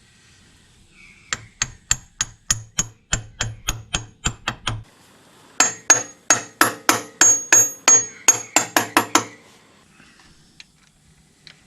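Hammer tapping a new gearbox oil seal into its housing: two runs of quick, regular blows, about four a second, separated by a short pause, the second run ringing more brightly.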